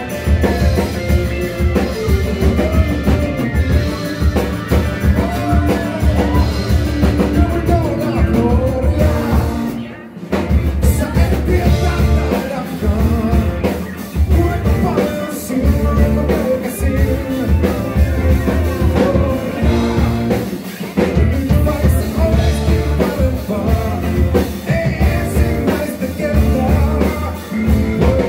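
Live rock band playing: electric guitars, bass guitar and drum kit, with a man singing lead into a microphone. The band drops out for a moment about ten seconds in, then comes back in.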